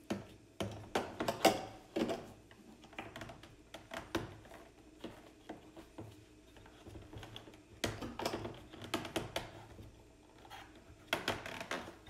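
Hard plastic vacuum attachments and hose clattering, clicking and knocking in irregular bursts as they are handled and fitted into the plastic on-board storage compartments of a cordless wet/dry vacuum. The busiest clatter comes about a second in and again from about eight seconds in.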